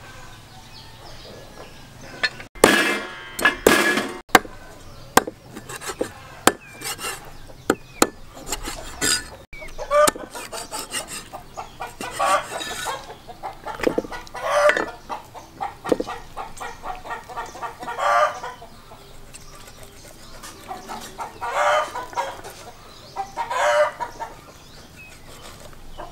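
Live chickens clucking, with a rooster crowing at times. A run of sharp clicks or knocks sounds in the first several seconds.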